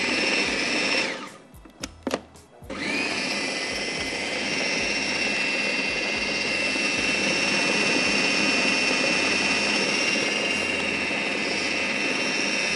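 Electric food processor motor running at speed, chopping a chicken mince mixture. It stops about a second in, a few clicks follow, then it starts again and runs steadily with a high whine.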